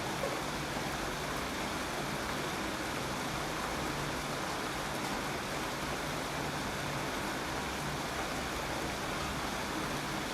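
Steady rainfall, an even, unbroken hiss of rain.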